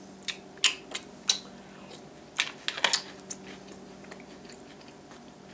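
Chewing a mouthful of Little Debbie Oatmeal Creme Pie cereal, with a string of short, sharp crunches in the first three and a half seconds.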